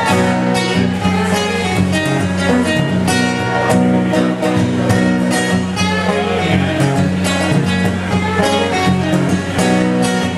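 Two acoustic guitars strummed together in an instrumental passage of a live song, played with a steady rhythm over sustained low notes.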